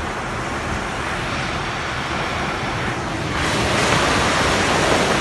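Landslide: rock and soil sliding down a steep hillside onto the road, a steady rushing noise that grows louder about three and a half seconds in.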